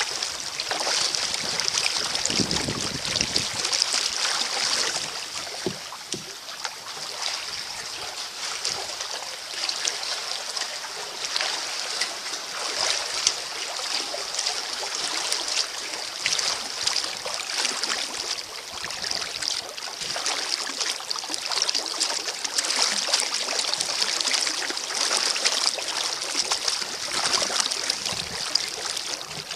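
Kayak paddle working through the water, with steady splashing and trickling of water around the paddle and hull.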